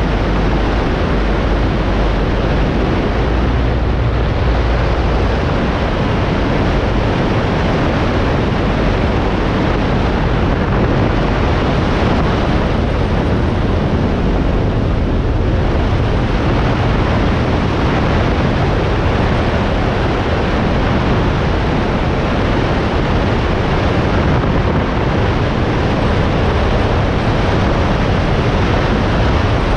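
Piper Pacer's engine and propeller running steadily on approach to land, heard through heavy wind rushing over the wing-mounted microphone.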